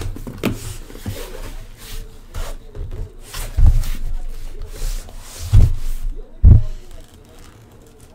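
Cardboard and plastic wrapping rustling and scraping as a sealed case of sports-card boxes is handled and opened, with three dull thumps about three and a half, five and a half and six and a half seconds in.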